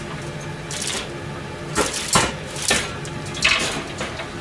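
Metal cookware clattering and knocking against a wire shelf rack as a pot is pulled out, in four or five separate knocks, over a steady low hum.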